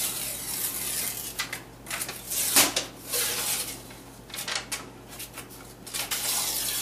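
Paper wrapping being peeled and torn off a tube of refrigerated orange Danish roll dough, rustling in several bursts, with one sharp knock about two and a half seconds in.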